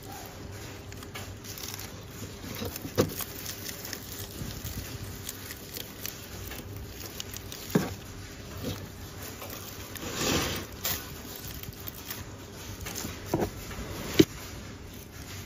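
Dry shed skin of a pet snake crackling and rustling as fingers peel it away, with a handful of sharp clicks and taps against the cardboard and plastic tub and a longer rustle about ten seconds in.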